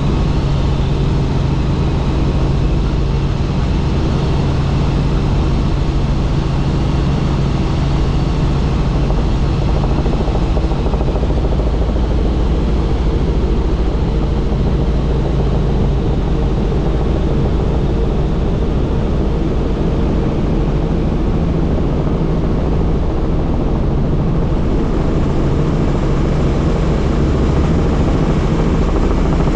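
A helicopter running steadily in flight: an even, loud drone of engine and rotor with a few steady low hums underneath.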